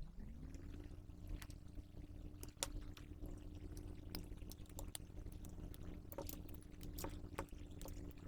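Small electric motor of a solder-removal tool spinning up, running steadily and winding down near the end, with scattered sharp clicks and taps as the fuse is desoldered from the circuit board.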